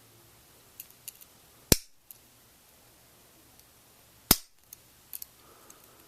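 Victorinox Pioneer Swiss Army knife's tools snapping against their backsprings: two sharp snaps about two and a half seconds apart, with a few fainter clicks of the tools being handled around them.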